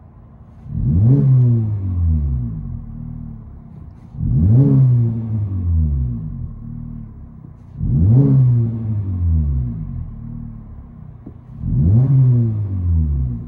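2019 Honda Civic LX's 2.0-litre four-cylinder engine, with its muffler deleted and a resonator still in place, revved in park and heard from inside the cabin. Four separate blips, each rising sharply in pitch and sinking back to idle over about two seconds, with an idle drone between them.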